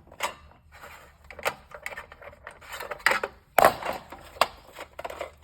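A hand tool clinking and scraping on the metal fittings of a shower panel's rainfall head as its screws are loosened. It makes a string of irregular sharp metallic clicks, loudest about three and a half seconds in.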